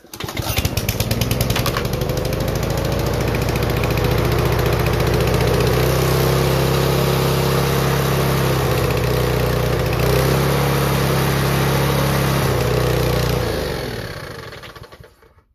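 DAC 1050 XL petrol lawn mower engine starting and catching at once, then running steadily for about thirteen seconds before it is shut off and dies away. It runs again now that the carburettor has been cleaned; a stuck float needle in the carburettor was the cause of its not starting.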